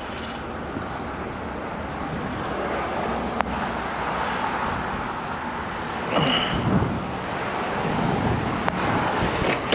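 A vehicle running and moving, heard as a steady rumbling noise that swells a little, with wind on the microphone. A short high squeal comes about six seconds in.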